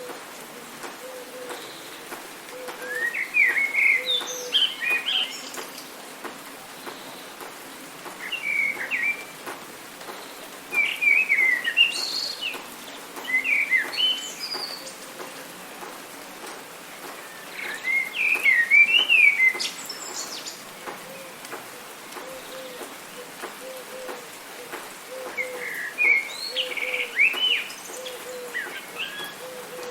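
Songbird singing in short phrases of quick, sliding chirps and whistles, five bursts a few seconds apart. Behind it is a steady hiss of rain, and a faint low note repeats every second or so.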